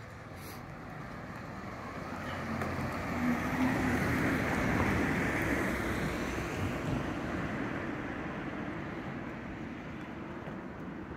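A car driving past on the street. Its engine and tyre noise swell to their loudest about four to five seconds in, then fade slowly.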